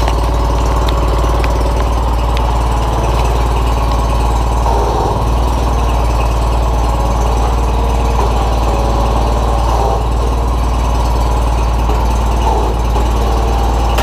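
Wheel Horse 520H garden tractor engine running steadily just after being restarted, with its rebuilt hydraulic system being checked for leaks.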